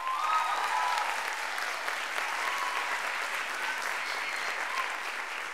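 Audience applauding steadily, with a few cheers rising over the clapping near the start.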